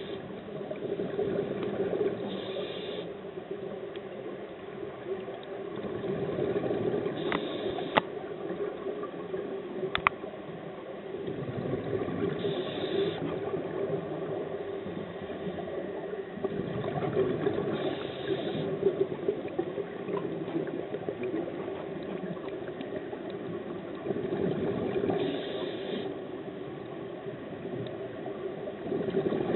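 Underwater scuba breathing through a regulator: exhaled bubbles gurgling out in a swell every five to seven seconds over a steady low hum, with two sharp clicks about eight and ten seconds in.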